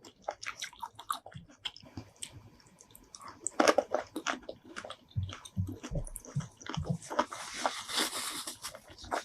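Close-miked ASMR eating of seafood: biting and chewing with wet mouth sounds in many short, uneven clicks, a loud bite about three and a half seconds in, and a denser, wetter stretch of chewing near the end.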